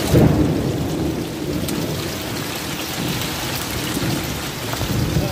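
Hail and heavy rain falling on corrugated tin roofs, a steady hiss and patter, with a roll of thunder rumbling in at the start and swelling again near the end.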